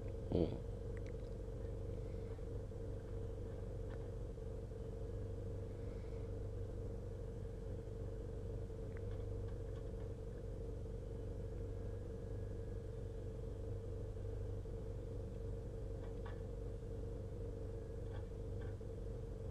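Log truck's diesel engine idling, heard inside the cab as a steady low hum. A brief sharp knock about half a second in, and a few faint ticks later on.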